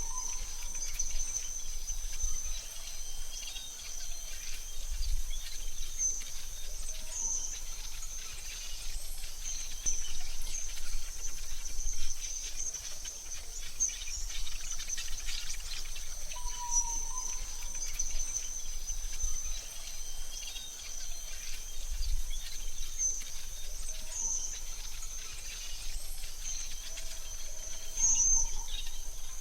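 Synthetic forest ambience: a steady high-pitched insect drone runs throughout, with occasional short bird chirps, a few lower ones near the start, middle and end.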